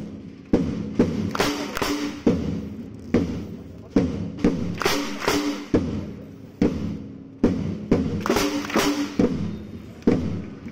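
Snare drum struck hard in a slow, uneven beat, a hit every half second to a second, each one ringing on and fading before the next.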